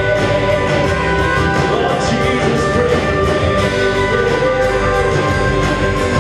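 Live praise band playing a mostly instrumental passage, with guitars to the fore over the full band and little singing.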